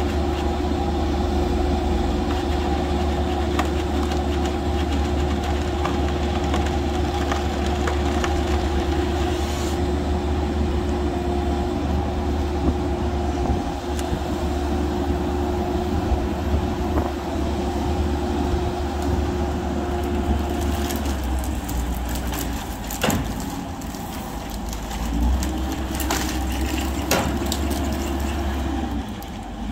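The diesel engine of a Merlo Roto rotating telehandler runs steadily under hydraulic load while its Woodcracker CS750 tree shear works in the tree. About 20 s in the engine note drops and shifts, and sharp cracks of breaking wood come twice as the cut limb is brought down.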